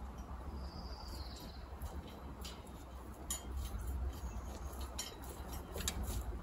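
Two-row garden gridder being rolled along a soil bed, giving a few light, irregular clicks and clinks as it lumps along, the loudest near the end, over a low outdoor rumble.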